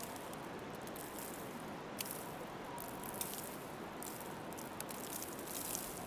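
Footsteps crunching in snow, irregular crisp crunches over a steady soft hiss of outdoor winter ambience.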